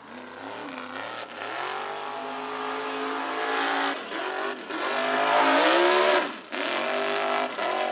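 Mega mud truck's engine revving hard under load. Its pitch climbs, drops sharply about four seconds in and again just after six seconds, then climbs again.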